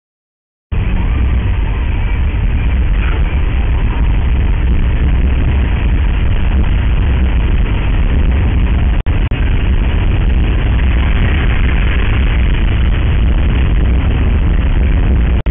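Steady road and engine noise inside a car cabin at highway speed, picked up by a dashcam microphone, heaviest in the low end. It starts after a brief silence and cuts out for a moment about nine seconds in.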